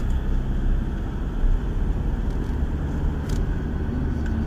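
Steady low rumble of a car's engine and tyre noise at highway speed, heard from inside the cabin.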